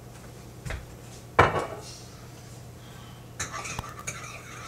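Kitchen clatter: a light knock, then a louder clunk with a short ring about a second and a half in, then a run of quick light clinks of a utensil whisking in a bowl, mixing an egg-yolk and oil salad dressing.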